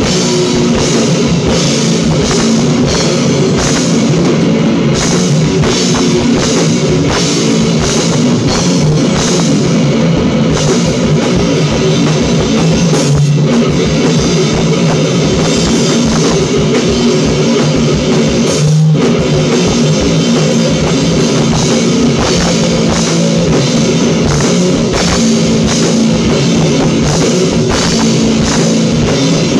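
Electric guitar and a full drum kit playing a loud, heavy rock jam together without a break.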